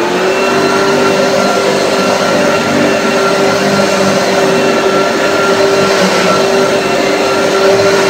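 1980 Hoover Junior U1036 upright vacuum cleaner running steadily as it is pushed over a rug, its motor and beater brush giving a constant hum with a steady whine on top.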